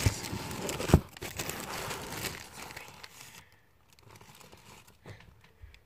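Bedding rustling as a duvet is handled close to the phone's microphone, with a sharp knock about a second in; the rustling dies away after about three seconds, leaving a few faint clicks.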